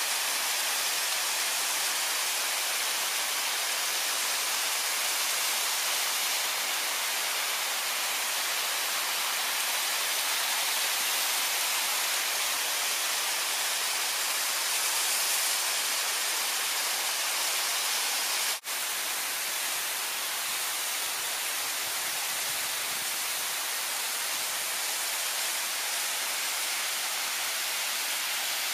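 Steady rushing hiss of a mountain waterfall and its stream, broken off for an instant about two-thirds of the way through.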